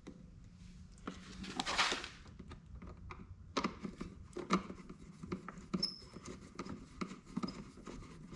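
Hand work on an ATV's air box and hoses: irregular small clicks and knocks of metal and plastic parts and tools being handled, with a brief scraping swish a little under 2 s in.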